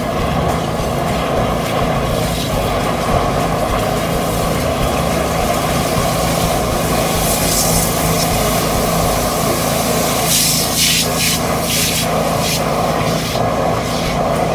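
High-pressure drain-jetting machine running steadily while sewage rushes through the manhole channel, with short bursts of hiss about halfway through and again a little later.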